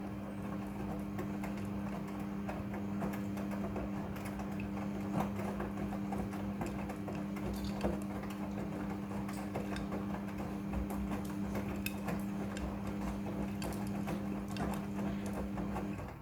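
Midea front-loading washing machine with its drum turning in the wash cycle: a steady motor hum with scattered clicks and knocks from the tumbling load, stopping shortly before the end.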